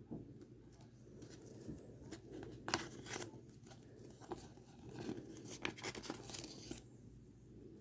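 Paper instruction leaflet being handled and unfolded, with faint crisp rustles and clicks, busiest through the middle.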